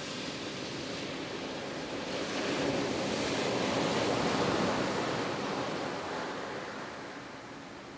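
Rushing noise, like surf, swelling slowly from about two seconds in and fading away near the end.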